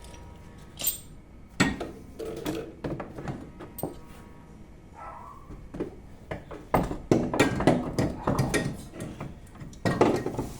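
Metal parts knocking and clinking as a suspension strut assembly is worked back into place and seated, in irregular bursts that grow busier in the second half.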